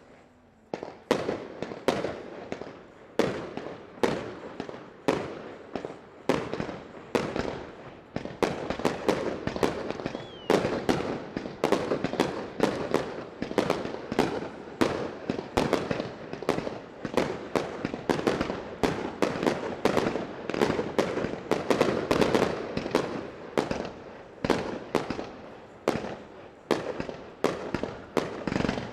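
Fireworks display: a rapid string of aerial shell bursts that begins abruptly, about two bangs a second at first and thickening into a near-continuous barrage after several seconds, each bang trailing off in a rumble.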